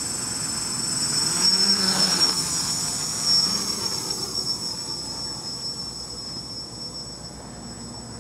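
Small brushless-motor quadcopter with its propellers spinning, a whine of several steady high-pitched tones. It gets louder as the quad throttles up and lifts off about a second in, then fades as it climbs away.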